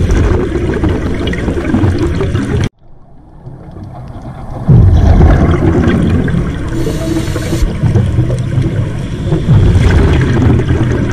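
Scuba diver's breathing recorded underwater through the camera housing: bubbling, rumbling exhalations from the regulator, the strongest starting about five seconds in and again about five seconds later, with a short hiss of inhalation between them. Near the start the sound cuts out suddenly and then slowly builds back up.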